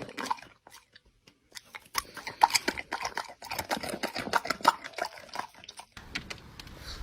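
An animal chewing, with quick, irregular crunching clicks. There is a short near-silent pause about a second in.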